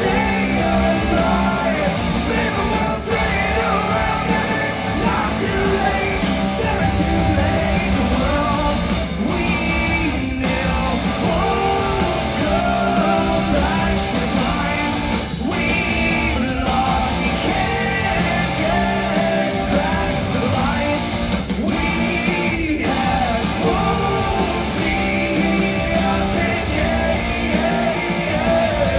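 Live rock band playing loud with distorted electric guitars, bass and drums, a male voice singing over it, recorded from the audience.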